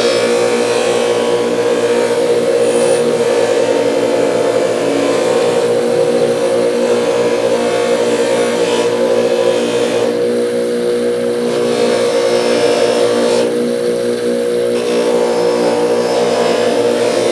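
Bench grinder spinning a nylon fiber abrasive wheel of about 320 grit, with the steel pliers held against it: a steady motor hum under a hissing scrub. The scrub drops away twice, for about a second and a half each, when the work comes off the wheel.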